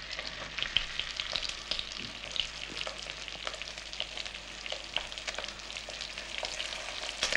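Chicken pieces frying in butter and oil in a cocotte over fairly high heat, sizzling with a steady crackle of many small spits and pops as they brown.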